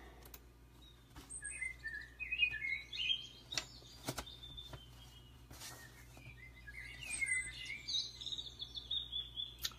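Several songbirds chirping and trilling in woodland, played back from a nature video through a speaker, with a few sharp clicks in the middle.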